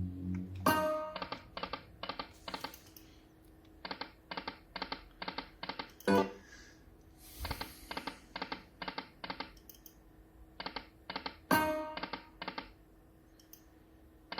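Slot machine spinning its reels: rapid electronic ticks, about four a second, in runs. Each run is set off by a short pitched tone as a spin starts, roughly every five seconds.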